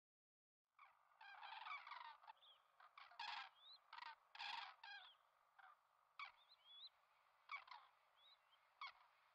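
Common cranes calling: a run of short calls at uneven intervals, several close together about a second in, with faint short rising chirps between them.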